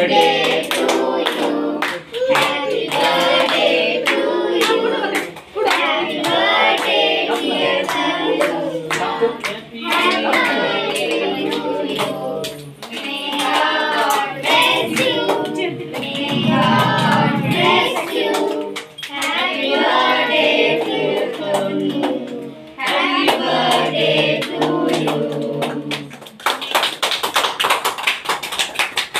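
A small group of people singing a birthday song together, clapping along, breaking into a run of applause near the end.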